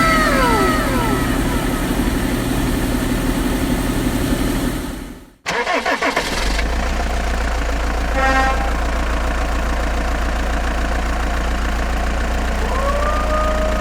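Vehicle engine running steadily; it cuts out abruptly about five seconds in, and a deeper engine hum starts again about a second later. Short gliding tones come at the start and near the end.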